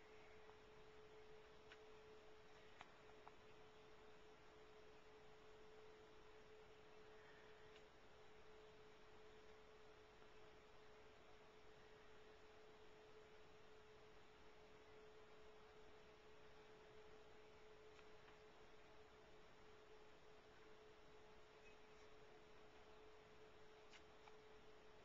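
Near silence with a faint steady hum at one unchanging pitch and a few faint ticks.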